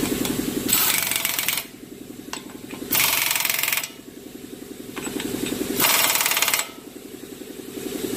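Impact gun run in three short bursts, each under a second, driving the CV axle nut onto the front hub: snugging the nut down lightly before it is torqued by hand. A quieter steady low pulsing runs underneath between the bursts.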